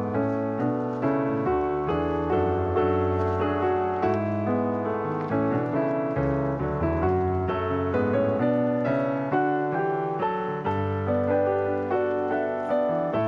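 Background piano music with a steady stream of notes.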